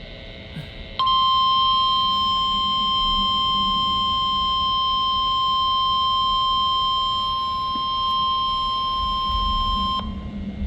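NOAA Weather Radio's 1050 Hz warning alarm tone, sounded as part of a weekly test. It is one steady, unwavering high tone that switches on about a second in, holds for about nine seconds, then cuts off sharply.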